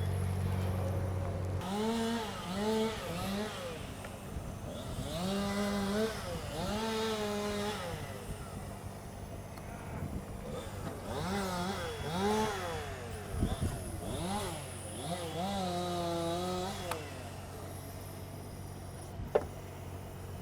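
A chainsaw revved in short bursts several times, its pitch rising and falling with each blip of the throttle. A steady low engine drone stops a little over a second in, and a sharp click comes near the end.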